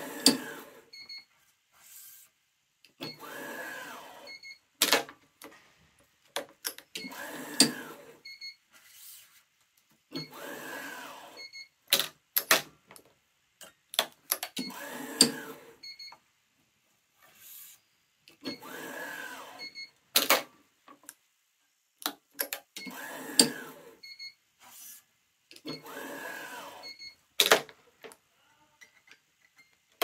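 Yonex ES5 Protech electronic stringing machine pulling badminton strings to tension, repeating about every four seconds, eight times: each pull is a second-long motor whir that rises and falls, with short beeps and sharp clicks of the string clamps and gripper, which are the loudest sounds.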